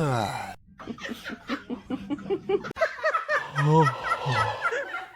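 A person laughing in short, repeated bursts, after a brief falling vocal glide at the start.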